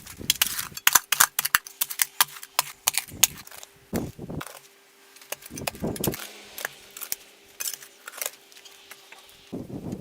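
Metal tools and hardware clicking and clinking in quick, irregular runs, with a few duller knocks between them.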